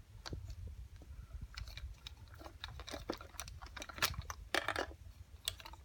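Irregular small clicks and rustling of audio cable plugs being handled and pushed into the Canon XL2 camcorder's audio sockets, with a cluster of louder clicks about four seconds in, over a low steady hum.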